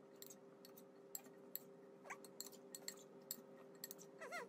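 Faint, irregular clicks of a spoon stirring sliced cucumbers in a glass bowl, over a low steady hum. A house cat starts to meow near the end.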